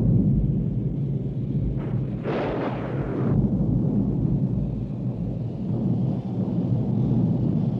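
Rolling thunder: a loud, continuous low rumble, with a sharper crack breaking through about two seconds in.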